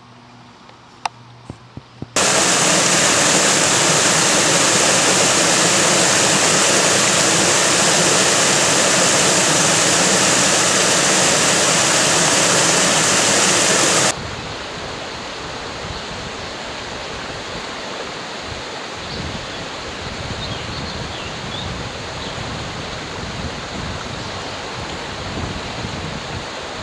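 Stream water rushing over rocks: a loud, even rush starts about two seconds in and cuts off suddenly about halfway through, giving way to a softer, steady river flow with a few faint bird chirps.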